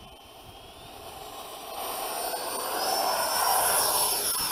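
Electric ducted-fan RC jet's 80 mm fan spooling up on its takeoff run: a high whine that climbs in pitch and then holds, over a rush of air that grows louder as the jet comes down the runway, loudest about three and a half seconds in and easing slightly at the end.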